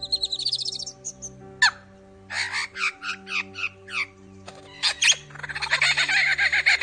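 Male superb lyrebird singing its display song, a medley of copied songs mixed with its own calls: a fast high trill, a sharp downward-sliding note, a run of about seven short notes, then a dense, rapid chatter near the end.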